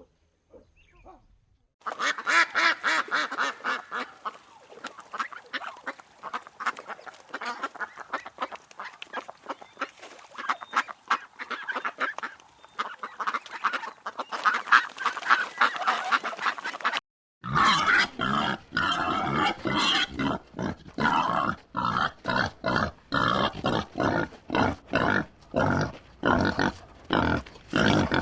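A flock of waterfowl calling all at once in a dense, overlapping clamour. After a brief break about halfway through, this gives way to pigs grunting in a steady run of short, repeated calls.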